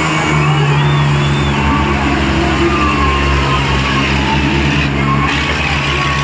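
Diesel tractor engines held at a steady high rev and running loud, a deep pulsing exhaust note.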